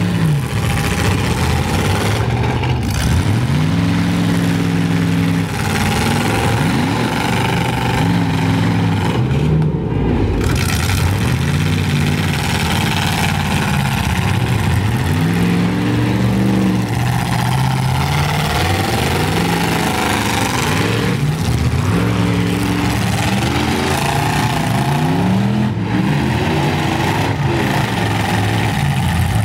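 Several demolition derby trucks' engines running loud, revving up and down over and over as the trucks push against each other.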